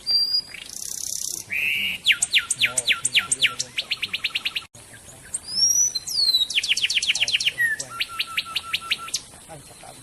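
Songbird song: a short high whistle and a buzzy note, then a run of rapid down-slurred notes that speeds up. A few swooping whistles follow about halfway through, then a second run of fast down-slurred notes that ends about a second before the end.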